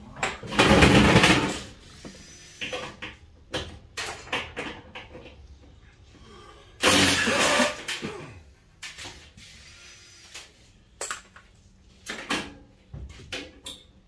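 Cordless power driver running in two bursts of about a second each, just after the start and about seven seconds in, backing out the bolts that hold a furnace's blower housing. Between and after the bursts, sheet metal knocks and clanks as the blower is worked loose.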